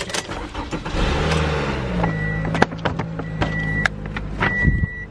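A car engine starts about a second in and then idles steadily. From about two seconds in, a dashboard warning chime sounds a high single beep about once a second, and a few sharp clicks from handling inside the car come between the beeps.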